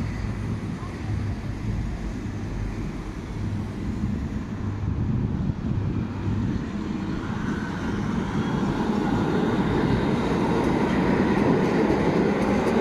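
Tram running on street track, its rumble growing louder through the second half as it draws near, with a faint steady tone near the end.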